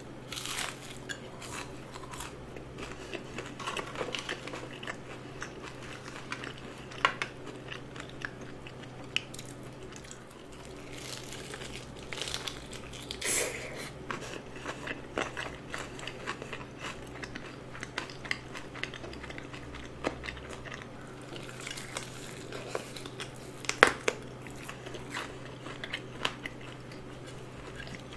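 Close-miked biting and chewing of crispy fried chicken drumsticks: scattered crunches and crackles of the breaded skin with wet chewing between them, the sharpest crunch a few seconds before the end.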